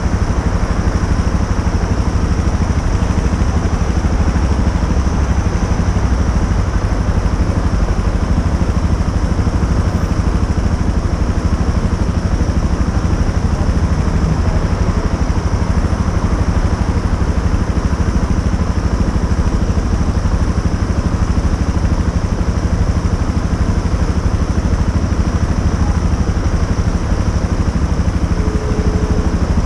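Motorcycle engine running steadily, with a heavy low rumble and no change in pitch.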